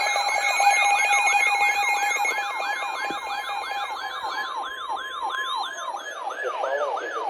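Emergency weather alert alarm: a siren-like wail that falls in pitch about three times a second, over steady alert tones. One steady tone cuts off about four seconds in and another about six seconds in, leaving the wail.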